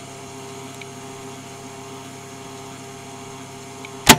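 Boombox switched on and idling before playback: a steady electrical hum and hiss with several steady tones, cut off by a loud click near the end.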